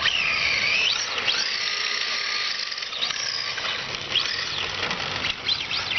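Tamiya TL-01 RC car's 19-turn electric motor and geared drivetrain whining, the pitch rising and falling over and over with throttle input while the car drifts, with tyre scrub underneath.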